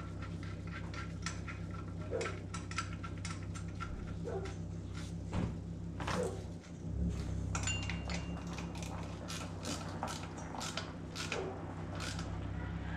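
Irregular metallic clicks and clinks from hand tools on metal as a new serpentine belt tensioner is fitted and bolted on, the clicks coming quicker near the end, over a steady low hum.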